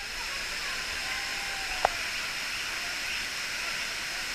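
Water rushing steadily down a wide, terraced waterfall, with a single sharp click a little under two seconds in.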